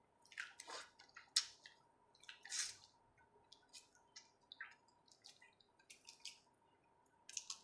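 Faint wet clicks and smacks of someone eating boiled prawns by hand: chewing, lip smacks and the shell being peeled off, in short scattered bits.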